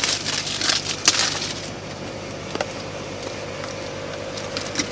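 Rustling and clicking of a box and its packing being handled as a beer mug is unpacked, dying away about a second and a half in. A steady hum with a faint whine carries on beneath.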